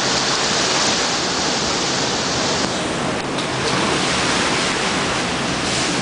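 Rough sea: seawater washing across a ship's steel deck and waves breaking against the hull, a steady rushing noise that turns a little duller about three seconds in.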